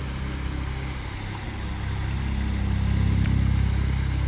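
A motor vehicle engine running steadily, getting louder about halfway through as it comes closer, with a single short click near the end.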